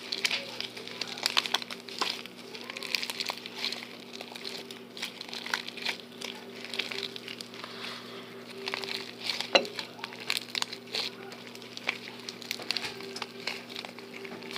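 Fluffy slime being kneaded and squished by hand, giving off irregular small pops, clicks and crackles as air pockets burst, over a steady low hum.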